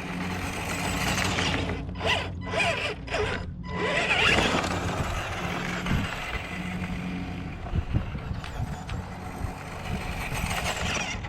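Electric RC scale crawler's motor and geared drivetrain whirring, with gear chatter, as it creeps over obstacles. It stops and starts briefly about two to three and a half seconds in.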